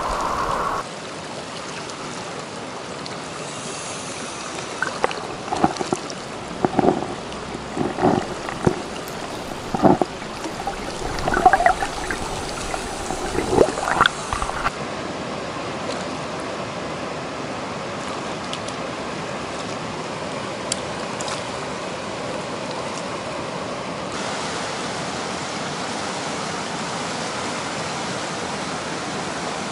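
River water rushing steadily over the riffles. In the first half, several short, louder sounds break through the flow.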